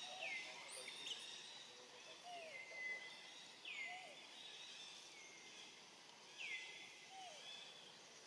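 A bird calling over and over, faintly: each call slides down in pitch and ends on a short held note, repeating every second or two over a quiet outdoor background.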